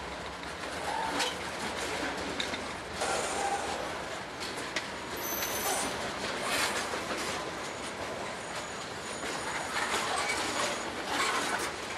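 Freight tank cars rolling past close by, with a steady clatter of steel wheels on rail and scattered knocks over the rail joints. Thin, high wheel squeals come in around the middle and again near the end.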